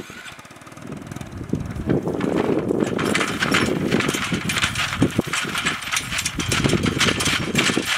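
Two-wheel tractor engine running with a rapid, even clatter as it pulls its trailer away, growing louder about two seconds in.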